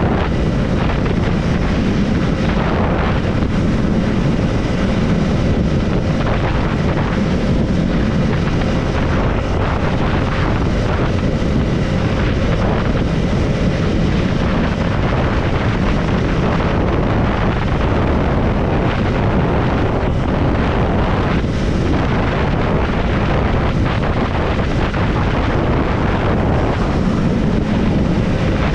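Triumph Scrambler 400X's single-cylinder engine and exhaust running at a steady road speed, mixed with wind rushing over the microphone.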